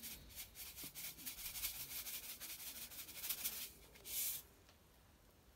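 Salt shaken from a canister into a saucepan of rice and water: a fast, fine patter of falling grains, with a denser pour about four seconds in before it stops.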